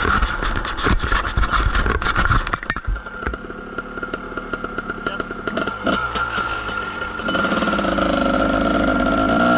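Kawasaki KDX220 single-cylinder two-stroke dirt bike engine running on a trail ride, under the clatter and knocks of the bike bouncing over the rough ground. From about seven seconds in, the engine note comes up louder and climbs in pitch as the bike accelerates.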